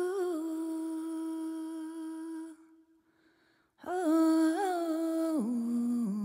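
A single voice humming a slow tune in long held notes. The first phrase fades out about two and a half seconds in, and a second phrase enters about a second later, stepping down to a lower note near the end.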